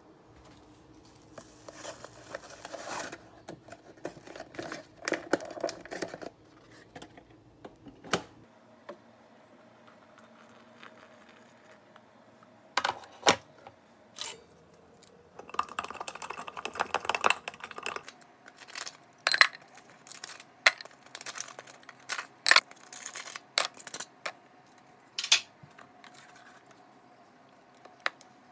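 A paper cocoa-mix packet rustles as powder is shaken into a glass. Then ice cubes drop into the glass, a series of sharp clinks through the second half.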